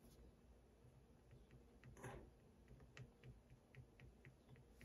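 Faint, quick ticks of a pointed wax-painting stylus tip tapping on a wax-painted card as thorns are dotted onto cactus shapes, about three or four a second, with a soft scrape a couple of seconds in.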